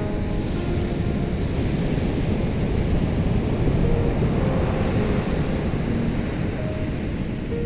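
Ocean surf washing on a shore, a steady rush that swells to its loudest about halfway through and eases off.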